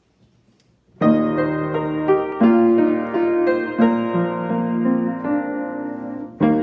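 Piano played with both hands, a slow hymn tune of chords under a melody, starting about a second in after near silence. The playing dips briefly near the end, then the next phrase begins.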